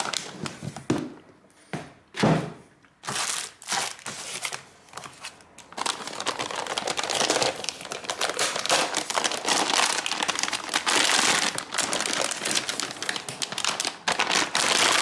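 Shiny plastic anti-static bag crinkling as it is handled and pulled off a graphics card: scattered crinkles for the first few seconds, then dense, continuous crinkling from about six seconds in.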